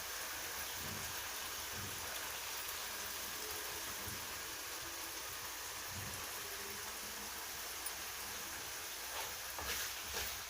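Soaked turmeric with its water sizzling steadily in hot oil and cumin in a kadhai.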